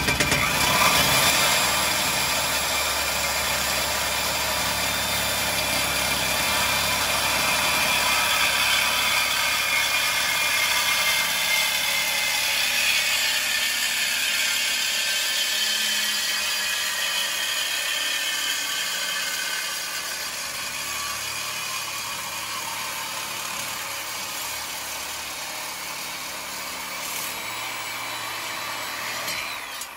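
Sawzall reciprocating saw cutting through a 3.5-inch exhaust pipe in one continuous, loud cut. The blade on the metal makes a steady harsh noise with a shifting pitch, which stops suddenly near the end as the pipe is cut through.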